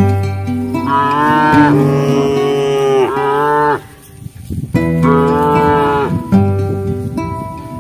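Cattle mooing: two long, loud moos, each sliding down in pitch as it ends, with a short gap between them.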